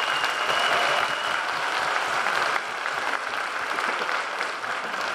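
Audience applauding in a hall: dense, steady clapping that eases slightly about two and a half seconds in.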